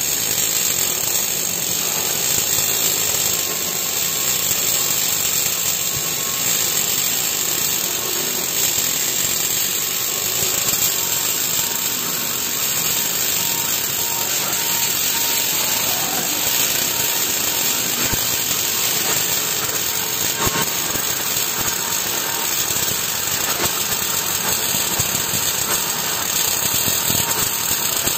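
Electric arc welding on structural steel plate: a steady, continuous crackling sizzle from the arc that carries on unbroken.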